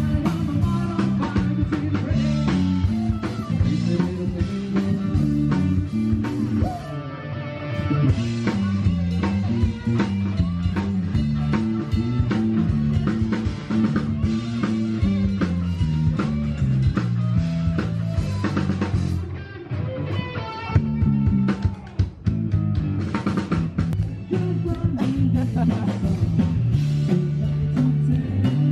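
Live band playing rock music, with guitar, a drum kit and a singer.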